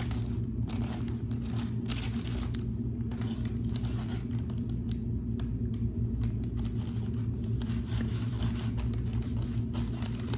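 Close-up eating sounds: chewing and working at barbecued ribs, with irregular small crackles and clicks over a steady low hum.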